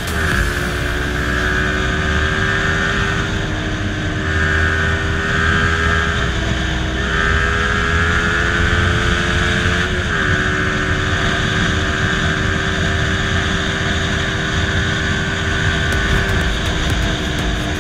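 Yamaha MT-15's 155 cc single-cylinder engine pulling while riding. Its pitch climbs gradually and drops suddenly twice, about 7 and 10 seconds in.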